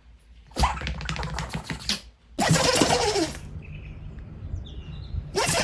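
A dog sneezing and snorting in rapid fits: a burst of quick, clicky snorts lasting over a second, a second sneezing burst soon after, and another fit starting near the end.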